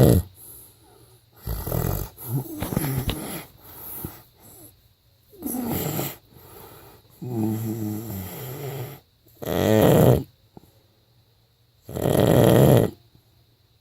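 A person snoring in sleep: about six snores with short pauses between them, some with a low buzzing drone, the loudest near the end.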